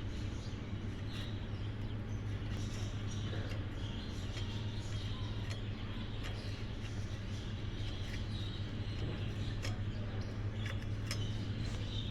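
Electric arc welder running: a steady hum with a haze of sizzle and scattered small crackles from the arc.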